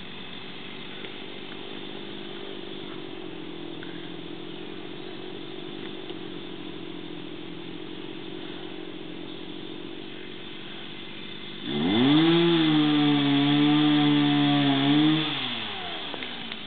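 Two-stroke chainsaw idling steadily, then revved up sharply about twelve seconds in, held at high revs for about three seconds, and let fall back to idle.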